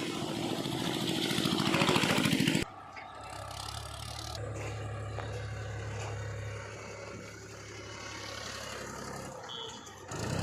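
Heavy diesel machinery engine running and working hard, growing louder over the first couple of seconds, then cut off abruptly and replaced by a quieter, steady engine hum.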